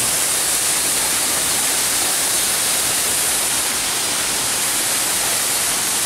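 Waterfall crashing onto rocks into a forest pool, a steady, unbroken rush of water.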